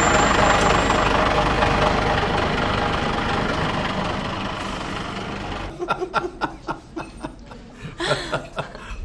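City bus engine running amid street noise at a bus stop, slowly fading. About six seconds in, it gives way to the clinks of dishes and cutlery at a restaurant table and a woman laughing.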